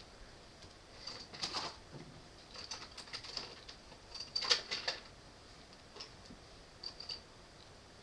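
Light clicks and taps of small objects being picked up and set down on a cluttered vanity top, coming in three short flurries with a few single ticks after.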